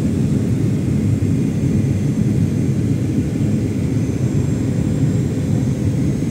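Cabin noise of a Boeing 737-800 descending on approach, heard inside the cabin beside the wing: a steady low rumble of its CFM56-7B jet engines and airflow, with a faint high whine above it.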